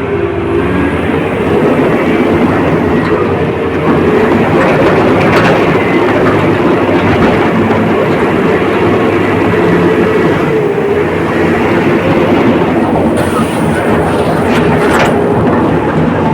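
Komatsu D85ESS crawler bulldozer's diesel engine running loudly and steadily, getting louder about four seconds in.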